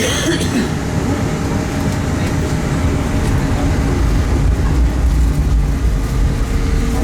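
Tram running along the tracks: a steady low rumble that grows slightly stronger about halfway through.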